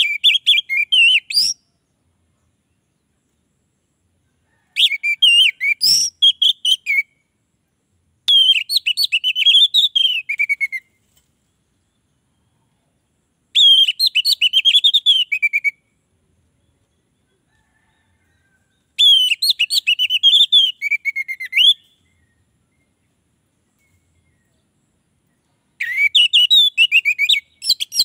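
Orange-headed thrush singing: six rapid, varied phrases of whistled and warbled notes, each two to three seconds long, with silent pauses between them.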